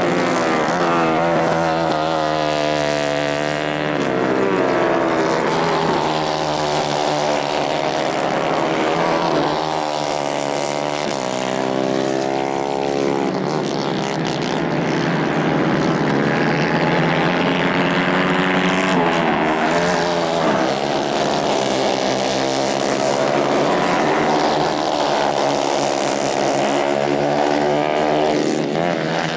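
Several racing kart engines running hard at once, their pitch rising and falling as the karts accelerate, lift and pass by.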